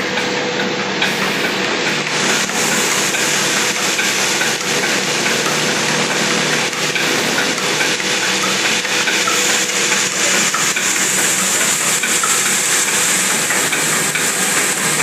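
Motor-driven village grain mill running steadily: a constant hum under a loud, dense, grainy rattle and hiss of the milling machinery.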